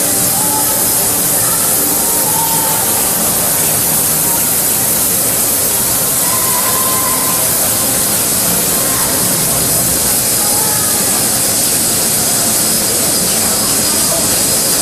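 Steady, loud hiss of an EDM machine at work, its dielectric water spraying and pouring off the electrode head over the gear being cut.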